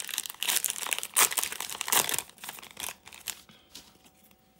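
Foil Pokémon booster pack wrapper crinkling as it is handled and opened: a dense run of crackles for the first three seconds or so, then a few softer rustles.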